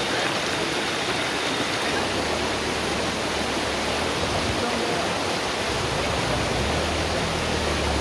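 Waterfall water rushing down rock slabs in a steady, even wash.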